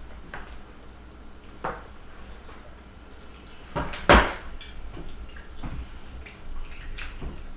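Cutlery knocking and clinking against plates while noodles are eaten fast: a few scattered clicks, with a louder clatter about four seconds in.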